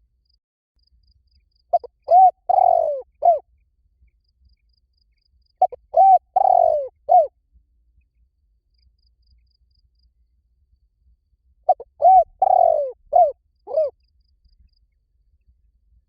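Spotted dove cooing: three phrases a few seconds apart, each a short run of several rising-and-falling coo notes with a longer note in the middle.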